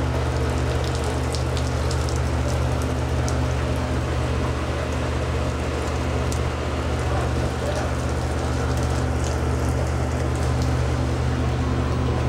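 Rain falling on a fishing boat's wet steel deck, with scattered sharp ticks of drops, over the steady low drone of the vessel's engine.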